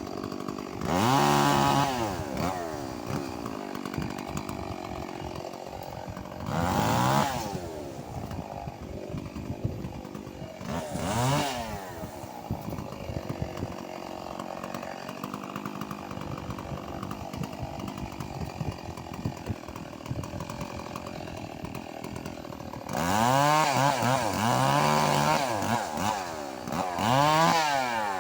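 Stihl 381 two-stroke chainsaw idling, with its engine revved up and let fall back several times: once each near the start, about seven and about eleven seconds in, then three surges close together near the end.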